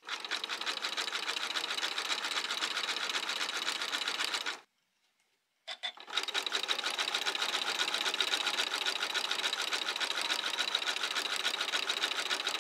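Sewing machine running steadily, zigzag-stitching wire onto the edge of a bonnet brim. About four and a half seconds in it stops for about a second, gives a few clicks, then runs on again.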